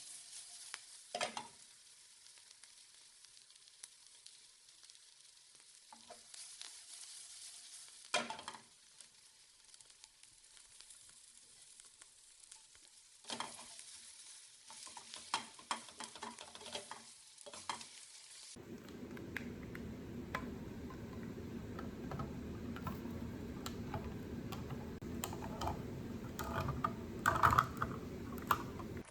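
Food frying in a pan, a light sizzle, with the knocks and scrapes of a utensil stirring it. About eighteen seconds in the sound changes abruptly to a fuller, lower frying noise with clicks, the loudest clacks near the end.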